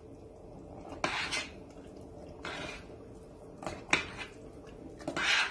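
Metal spoon stirring a thick tomato and pepper sauce in a stainless steel pot, scraping along the pot in a few separate strokes, with two quick clinks past the middle. The scraping is the spoon working the bottom so the thickening sauce doesn't stick.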